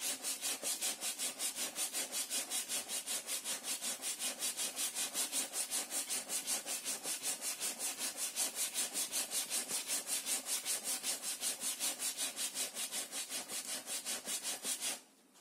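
Sandpaper rubbed by hand back and forth over the wooden planking of a model ship's hull, in rapid, even scraping strokes several times a second. The strokes stop abruptly near the end.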